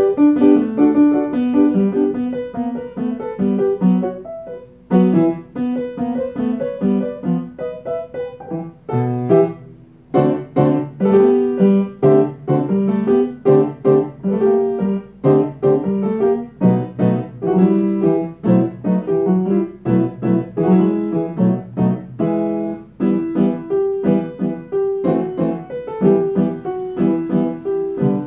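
Upright piano being played with both hands: a continuous piece of note runs and chords, with short breaks about four and a half and nine seconds in.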